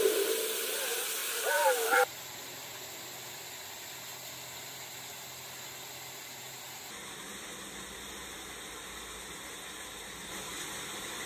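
A person taking a deep, noisy breath for about the first two seconds, then a steady soft hiss.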